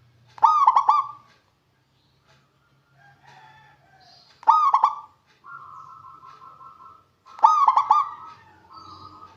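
Zebra dove (perkutut) singing: three loud phrases about three seconds apart, each a quick run of short clipped cooing notes. Fainter bird calls fill the gaps between phrases.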